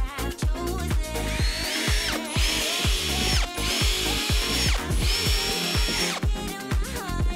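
Cordless drill running in several short runs, its motor whine rising to speed at the start of each, as it bores holes through a plastic battery box lid. Dance music with a steady beat plays throughout.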